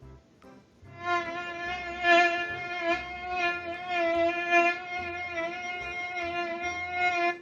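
Mosquito buzzing sound effect: one long, steady, high buzz with a slight waver, starting about a second in and cutting off suddenly near the end.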